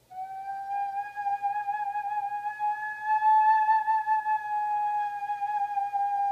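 Iwabue, a Japanese stone whistle made from a natural stone with a hole, blown in one long, slightly wavering whistle-like note. The pitch creeps up a little toward the middle and then sinks back slowly.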